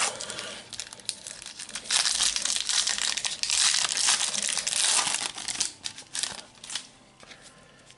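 A Match Attax Extra booster packet's foil wrapper being torn open and crumpled by hand: a crackling rustle full of small clicks, loudest in the middle and dying away near the end.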